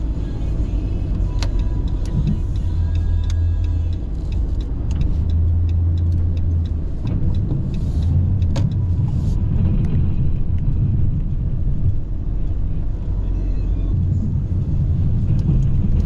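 Pickup truck driving on a snow-covered road, heard from inside the cab: a steady low engine and road rumble with scattered small clicks and knocks.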